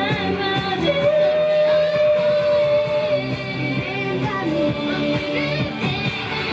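Live J-pop idol song: a group of young female singers over a guitar-driven backing, with one note held for about two seconds near the start.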